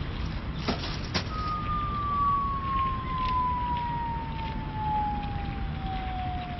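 Sound-effect rubbish bin: two short clicks about a second in, then a long whistle that falls slowly in pitch, the cartoon sound of something dropping down a very deep hole, triggered by litter thrown into the bin. Steady outdoor noise runs underneath.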